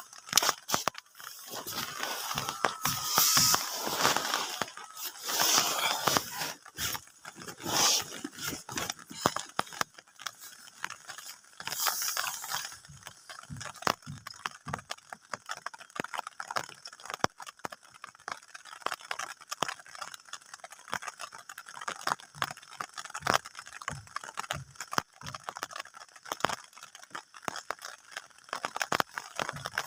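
Rustling and scraping of a cotton blanket and nylon tent fabric, with handling knocks on the phone, busiest in the first dozen seconds, then scattered light clicks and rustles.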